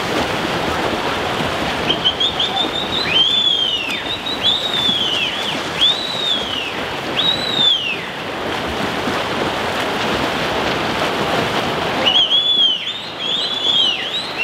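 Swimmers churning the water of a pool, a steady rush of splashing. Over it a bird calls with high whistled notes that rise and fall, about one a second, in a run of several near the start and another near the end.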